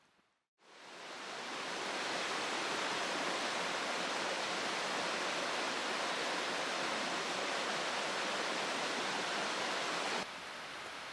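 Steady rush of a mountain stream's flowing water, fading in after a brief silence. About ten seconds in it cuts abruptly to a quieter rush.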